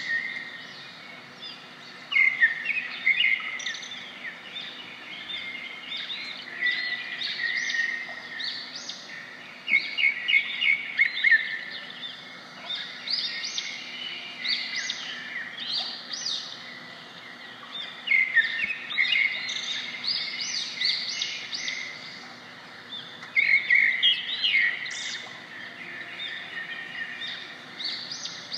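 Several birds chirping and calling, in clusters of quick, high chirps that come every few seconds, over a steady background hiss.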